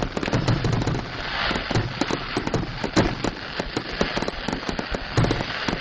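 Aerial fireworks popping and crackling densely, many reports a second with no let-up: the rapid-fire finale of a fireworks display.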